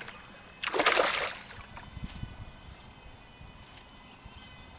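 A hooked jungle barb (Hampala barb) thrashing at the water's surface during the fight, with one loud splash about a second in, then quieter sloshing and a couple of light knocks.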